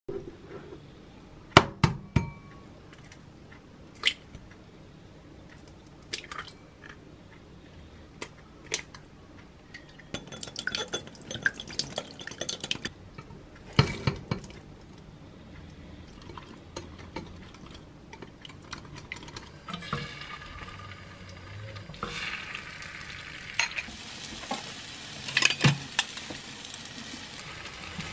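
Kitchen sounds of making a corn egg roll: a metal stirrer clinking against a glass mixing bowl as corn kernels are stirred into beaten egg, with separate knocks and taps. About two-thirds of the way through a steady sizzle starts as the egg mixture cooks in a square frying pan, with utensils tapping the pan.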